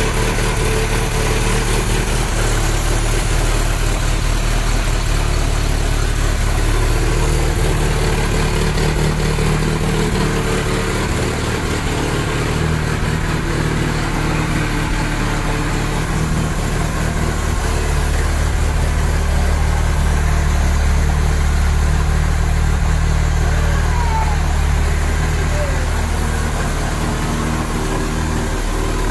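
Ford Pinto 2.0-litre four-cylinder engine with an unleaded cylinder head, idling steadily in a Robin Hood Series 3 kit car.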